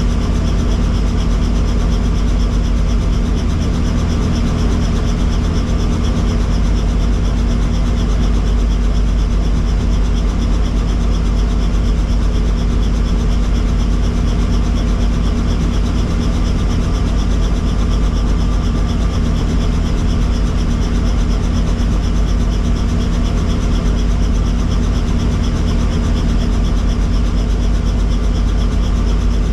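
Helicopter running steadily: a constant low rumble with steady humming tones over it.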